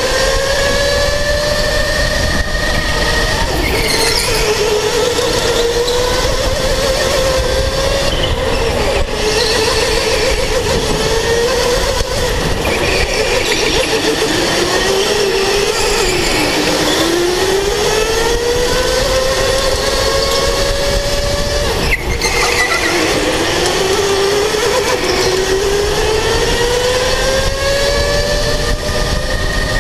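Electric go-kart motor whining under way, its pitch climbing as the kart accelerates and falling as it slows for the turns, twice dropping low in the middle of the lap. A steady rushing noise runs underneath.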